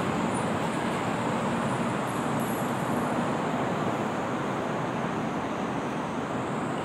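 Steady background din of a busy shopping mall: an even rushing noise with no distinct voices or events standing out.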